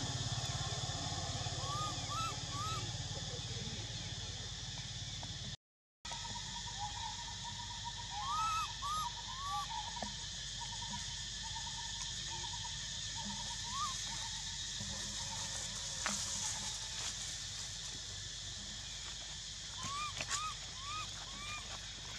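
Outdoor tropical woodland ambience: a steady high insect drone, with short rising-and-falling chirps in sets of three heard three times. The sound drops out completely for a moment about six seconds in.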